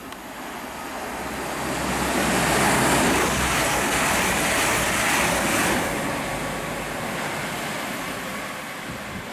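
A train passing on the main line: a rushing noise that swells over about three seconds, holds, then fades away, with a low hum underneath that stops a little over halfway through.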